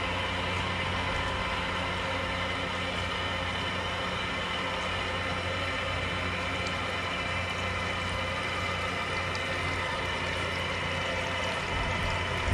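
Steady rush of water from a garden hose running through an outboard's flushing port into the cylinder-head water jackets, with a low hum underneath, as the heads fill to flush out calcium and salt buildup.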